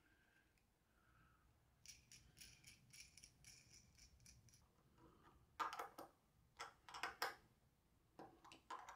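Faint, scattered metal clicks and light scrapes from a threaded steel rod and nut being fitted into a small wooden block by hand. A few sharper clicks come in the second half, as a wrench is put on the nut.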